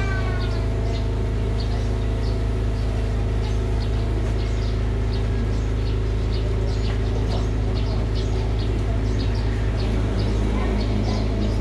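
A steady low hum, with faint, irregular short ticks over it from a Belgian Malinois puppy licking and chewing raw chicken feet on a plastic slatted floor.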